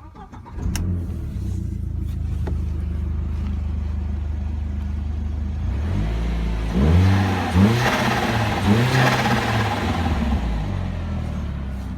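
K04-turbocharged Audi A4 1.8-litre turbo four idling steadily, then blipped several times with the pitch rising and falling, each throttle lift bringing a hissing turbo flutter (compressor surge), before it settles back to idle.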